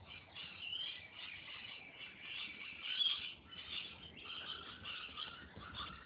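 A dense, continuous chorus of high chirping animal calls, many calls overlapping.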